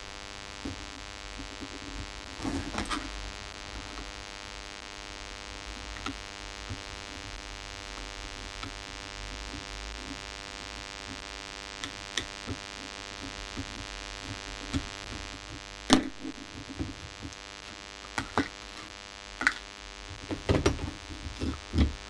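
A steady electrical hum with scattered small clicks and taps of hand tools and metal parts as the old mains dropper resistor is worked out of its asbestos case. The taps come thicker and louder over the last few seconds, with one sharp click about three quarters of the way in.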